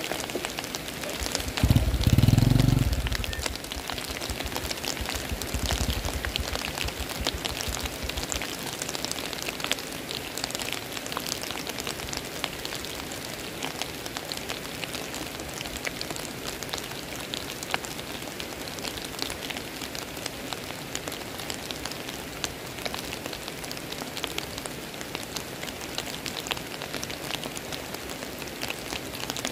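Steady rain pattering, a dense even hiss of fine ticks. About two seconds in there is a brief, loud, low muffled rumble, and a weaker low rumble follows a few seconds later.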